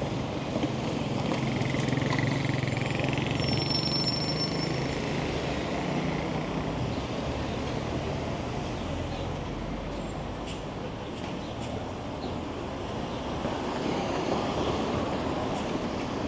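City street traffic. A vehicle rumbles past during the first few seconds, with a brief high squeal about four seconds in.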